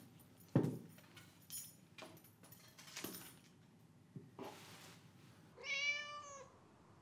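A few soft knocks and thuds, the loudest about half a second in, then a domestic cat meows once near the end, a call of about a second that rises and falls in pitch.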